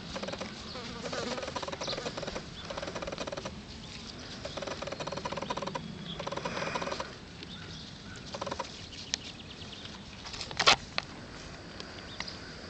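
Flies buzzing close by in several passes of a second or two each, with one sharp knock near the end.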